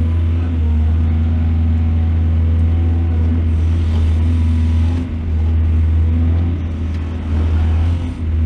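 Heavy diesel engine of earthmoving machinery running steadily with a deep low drone. It dips briefly about five seconds in and again near the end.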